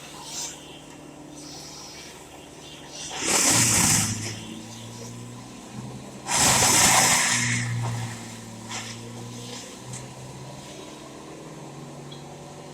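An engine idling steadily, with two loud rushing bursts of noise about three and six seconds in.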